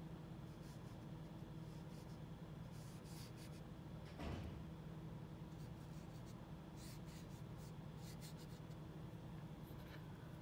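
Faint paintbrush strokes brushing and scratching across a painting surface, over a steady low electrical hum, with a soft knock about four seconds in.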